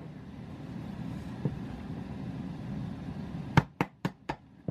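A hammer striking a wood chisel four times in quick succession near the end, knocking out the thin waste left between saw kerfs in a softwood board's notch. A single lighter knock comes about a second and a half in.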